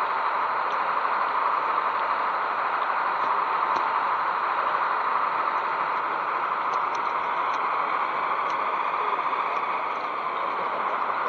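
O gauge model train running along the track: a steady rushing noise with faint ticks now and then.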